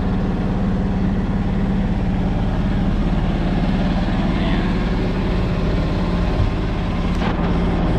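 An engine running steadily at a constant speed, an even low drone.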